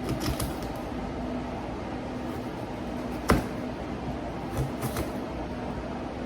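A few scattered sharp knocks of a knife coming down on a cutting board while imitation crab is cut, the loudest about three seconds in, over a steady low hum.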